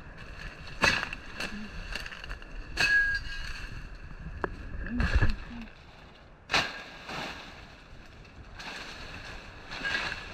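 Footsteps crunching and knocking over loose stones and dry leaves, in irregular steps with a few sharper knocks and one deeper thump about halfway through.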